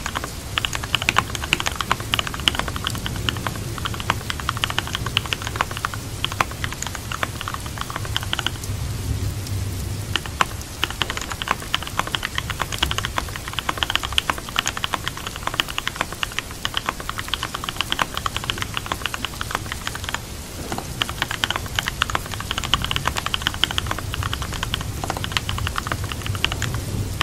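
Computer keyboard typing in quick runs of keystrokes over steady rain. The typing pauses for about two seconds a third of the way in, and briefly again later.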